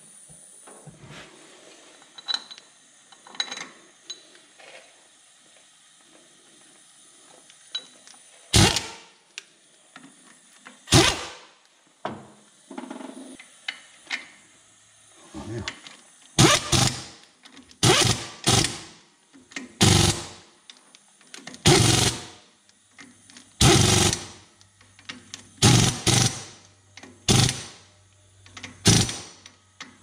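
A handheld power ratchet runs in short bursts, tightening the bolts of a front wheel hub. After a few faint ticks of parts being handled, the bursts start about eight seconds in and come every second or two, more often toward the end.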